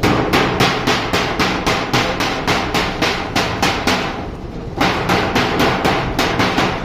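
Rapid hammering: even metal-sounding blows at about four a second, with a brief pause a little past four seconds in.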